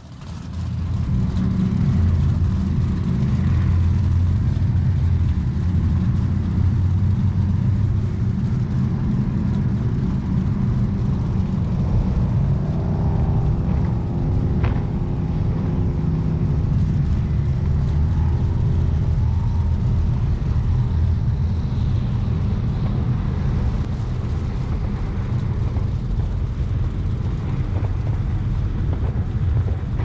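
Fountain 47 powerboat's triple Mercury Racing 1350 twin-turbo V8 engines running under way at speed, a loud steady low rumble that fades in over the first second. For several seconds around the middle a higher droning note rises and falls over the rumble, with one short sharp knock.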